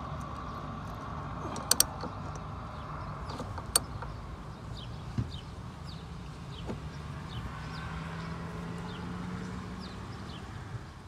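Sharp metal clicks of a ratchet and Allen socket working a port plug loose on an aftermarket fuel pressure regulator: a quick double click about two seconds in, then a few single clicks. Under them runs a steady background hum.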